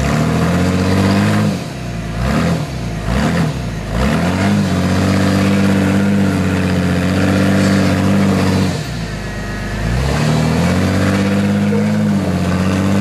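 Lifted Jeep Cherokee's engine revving under load as it crawls up a rock ledge. There are several short throttle blips in the first few seconds, then the revs are held high for about four seconds, drop away briefly about nine seconds in, and climb again and hold.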